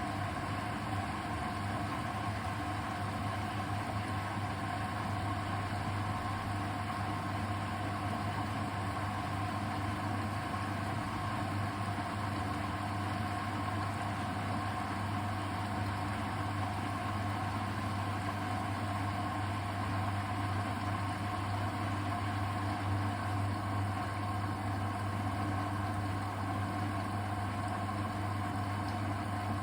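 Hoover VHD 812 washing machine running with a steady low hum and a faint even whine, without pauses or changes.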